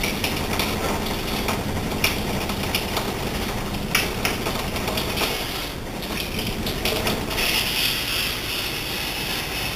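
Water spraying from a kitchen sink spray head to rinse concentrates out of a bucket sluice into a plastic gold pan, with a steady hum underneath. The spray hiss gets stronger near the end, and there are a couple of sharp knocks of the sluice against the pan.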